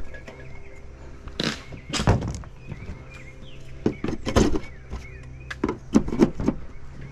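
Irregular knocks, thuds and clatter from hand work on old mobile home gutters and siding, with a few louder impacts among lighter taps, over a steady low hum.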